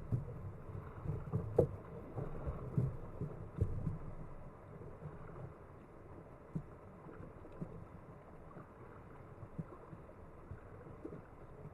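Kayak on the water: paddle strokes and water knocking against the hull, heard as low, irregular thumps that are busiest in the first four seconds.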